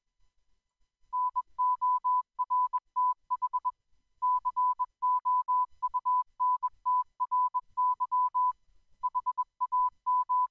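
Morse code sent as a single steady beep tone, short and long beeps keyed at a brisk pace from about a second in, with two short breaks between groups of characters.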